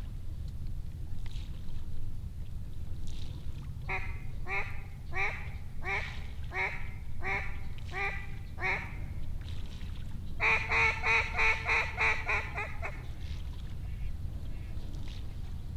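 Mallard-style quacking: a run of about eight evenly spaced quacks, then, after a short pause, a faster and louder run of quacks.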